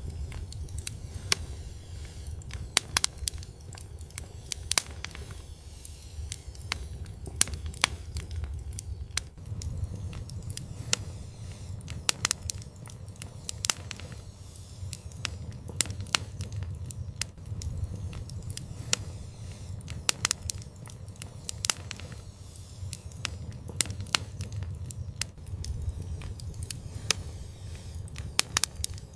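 Wood fire burning in an outdoor fireplace: irregular sharp crackles and pops over a steady low rumble of the flames.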